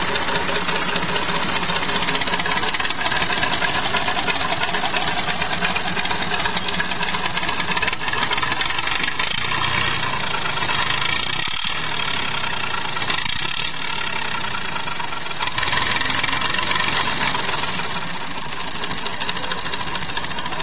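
Tractor diesel engine running steadily on a blend of 80% jatropha biodiesel and 20% fossil diesel.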